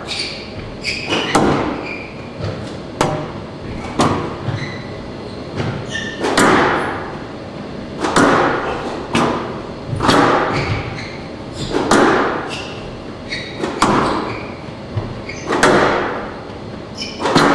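Squash rally: the ball cracking off racquets and the court walls about once a second, each hit echoing in the hall, with short squeaks of court shoes on the floor between hits.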